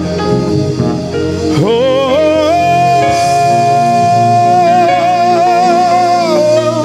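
Gospel worship music: a singer slides up about one and a half seconds in to one long wordless note with vibrato, over sustained backing chords, and lets it fall near the end.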